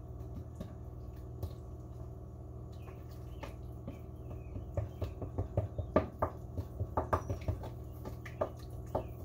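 Wooden spoon stirring a wet, freshly combined pizza-dough mix of yeast water, flour and olive oil in a bowl. It makes soft wet clicks and small knocks against the bowl, sparse at first and coming quickly from about three seconds in.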